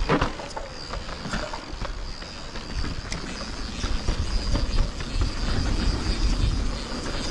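Yeti SB150 mountain bike rolling along dirt singletrack: tyre noise with scattered clicks and rattles from the bike over bumps. A thin steady high whine runs underneath, and wind rumble on the microphone grows louder in the second half.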